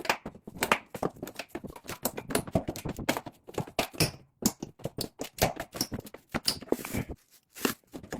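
Hands handling electrical wiring: a dense run of irregular clicks, taps and rustles, pausing briefly near the end.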